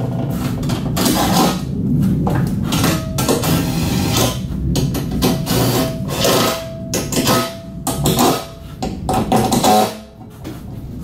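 Cordless power driver running in short bursts as it drives the bolts of a car's alloy sump guard, with background music.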